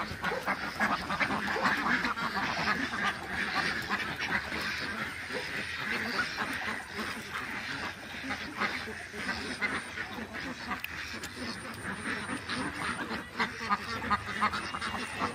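A large flock of domestic ducks quacking, many short calls overlapping into a continuous chatter.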